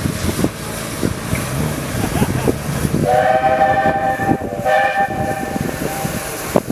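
Steam tank locomotive's whistle sounding one long blast, starting about three seconds in and lasting about three seconds with a brief dip midway, as the engine runs past the platform.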